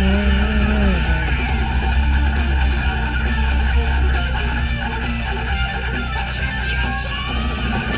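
Rock music with strummed electric guitar and bass.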